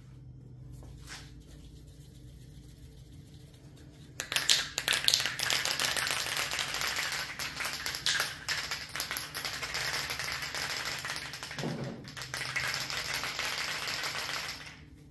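Aerosol can of weld-through primer spraying in a long hiss, starting about four seconds in with a short break near the end, after a few faint clicks.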